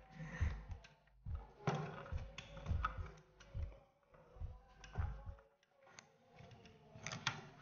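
3D-printed plastic wheel rims and parts of a model truck chassis being handled and set down on a cutting mat: a string of light clicks and taps with soft knocks, one or two a second, ending in a sharper click near the end.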